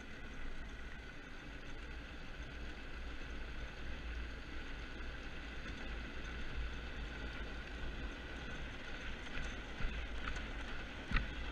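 Engineless soapbox kart coasting downhill on a concrete slab road: a steady rush of wind on the microphone and the rolling noise of its small hard tyres, with two sharp knocks near the end.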